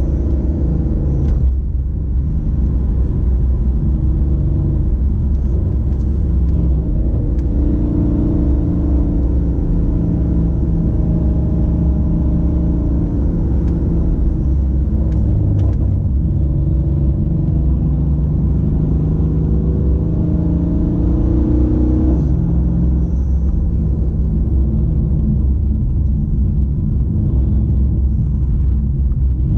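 Mercedes 5.8-litre twin-turbo V8 heard from inside the cabin while cruising on light throttle: a steady low rumble whose pitch drifts up and down a few times with speed.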